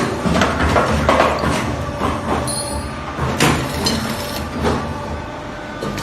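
Automatic double-hook wire-forming machine running, with a steady motor hum under a busy, irregular clatter of metallic clanks and clicks.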